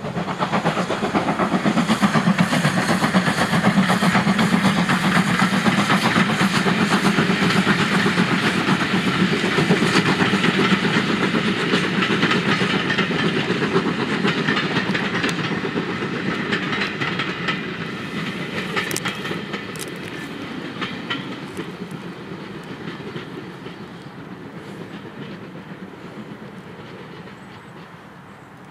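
Steam tank locomotive running past under steam with a train of passenger coaches: rapid chuffing and hiss. The coaches then roll by with clicks from the wheels over the rail joints, fading away in the last third.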